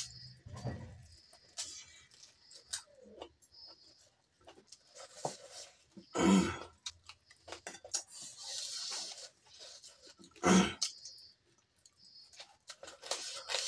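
Close-up eating sounds: chewing, lip smacks and wet sucking as meat is pulled off chicken bones by mouth, with a hissy suck a little past the middle and two louder sucks about six and ten and a half seconds in.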